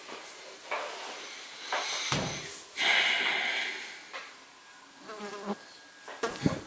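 Housefly buzzing close to the microphone in short passes, mixed with rustling and a thump of someone settling into a seat. There is a thump about two seconds in and a louder rustle just after.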